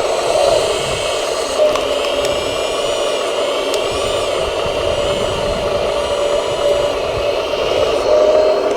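Small electric motors and gearboxes of radio-controlled construction models whining steadily, their pitch rising and falling with the throttle.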